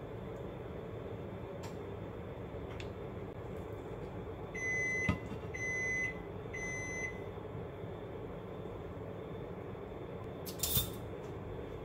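An electronic kitchen appliance beeps three times, each beep a single high tone about half a second long, about a second apart. A short clatter comes near the end.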